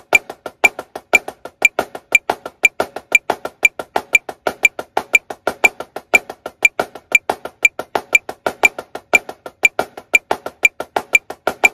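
Marching snare drum played in steady triplets, about six strokes a second with some strokes accented, over a metronome clicking twice a second (120 beats per minute): a triplet grid rudiment exercise.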